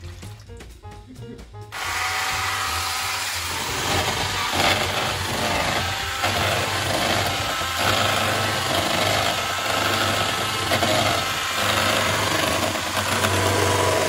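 Electric whisk running steadily as it beats milk and powder into a thick, foamy cream in a plastic bowl. It switches on about two seconds in, after a stretch of background music with a beat.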